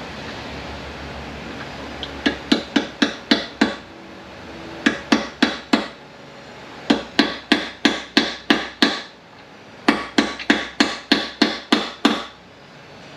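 Sharp metal-on-metal strikes from a hand tool worked against a manual transmission case. They come in four quick runs of about four to five blows a second, each with a short ring.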